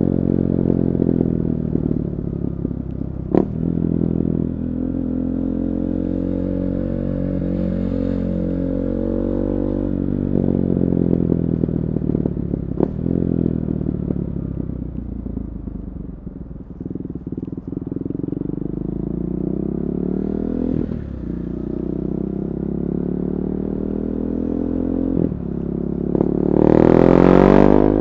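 KTM 390 Duke single-cylinder engine running loud through an Akrapovic slip-on exhaust and decat pipe, its revs rising and falling, with a few sharp cracks as it changes load. Near the end a loud rushing burst covers everything.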